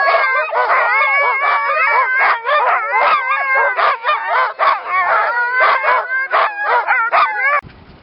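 A pack of Siberian husky sled dogs barking, yipping and howling at once, many voices overlapping in a loud chorus. It cuts off suddenly near the end.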